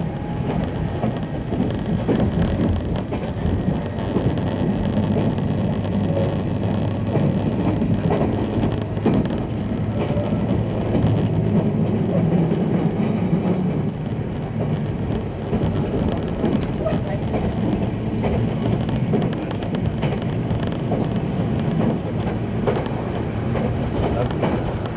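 Cabin running noise of a JR Kyushu 883 Series electric train at speed: a steady rumble of wheels on rail and the car body, with occasional sharp clicks.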